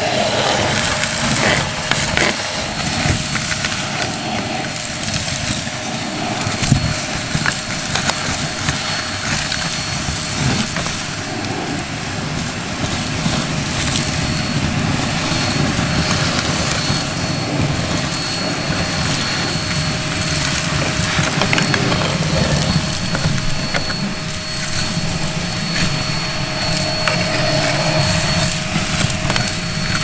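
VonHaus 800W ash vacuum running steadily while its crevice nozzle sucks wood ash and cinders out of a log burner's firebox, the motor's drone overlaid with constant crackling and rattling as debris is pulled up the hose.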